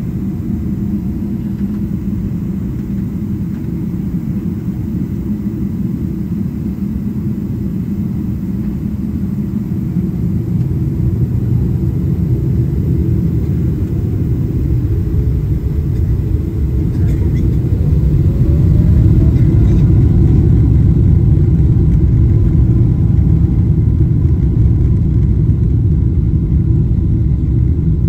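Inside the cabin of a Boeing 777-300ER, its GE90 engines and the airframe give a steady low rumble. About halfway through, a faint whine rises in pitch as the engines spool up, and the rumble grows louder and stays louder. This is the start of the takeoff roll.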